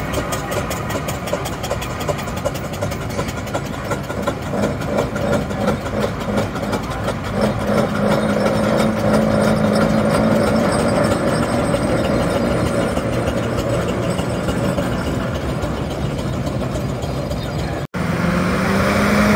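Vehicle engines running at close range, with a steady engine note in the middle that slowly drops in pitch. Near the end a sudden cut brings in a different engine whose pitch rises and falls.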